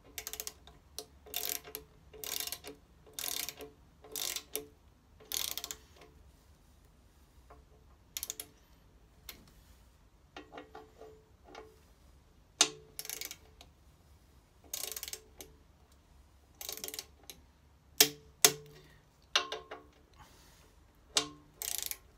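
Socket ratchet of a torque wrench worked in short back-and-forth strokes, its pawl clicking rapidly in bursts, as the bolts of a motorcycle sump guard are tightened to torque. A few sharper, louder single clicks come in the second half.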